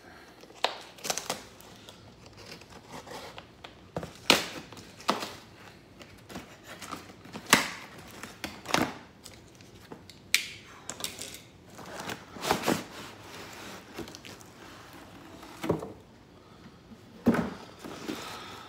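Cardboard shipping box being unpacked by hand: packing tape torn and cardboard and packing rustling and crinkling, in irregular sharp rips.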